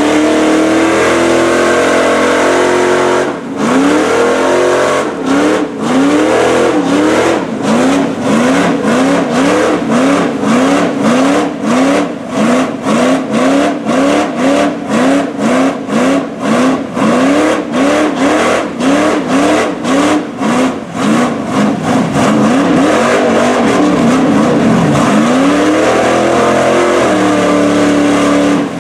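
LS V8 engine of a lifted Chevy mud truck revving hard under load in deep mud. A few seconds in, the revs start rising and falling over and over, about one and a half times a second, then hold steadier again near the end.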